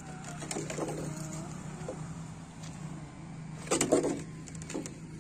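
A steady low engine hum with a few bird chirps over it, and a short loud noisy burst about four seconds in.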